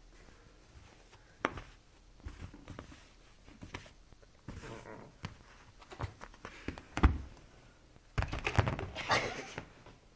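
A cat pawing and scrambling on a blanket-covered sofa: scattered soft thumps and fabric rustling, with the loudest thump about seven seconds in and a burst of rustling and scrabbling at the fabric for about a second and a half near the end.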